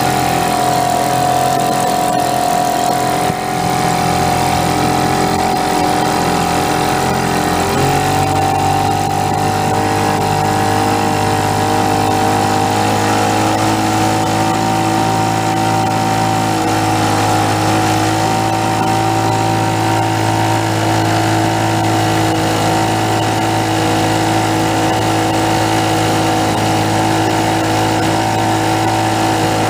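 Vintage two-stroke outboard motor running steadily at speed, pushing a small boat. Its note shifts slightly about eight seconds in.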